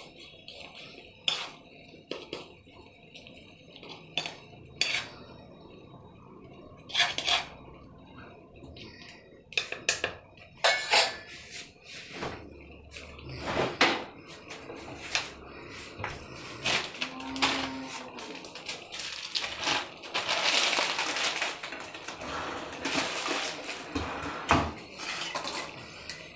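Steel ladle stirring soupy noodles in a black iron kadai, clinking and scraping against the pan at irregular moments, with a busier stretch of scraping past the middle.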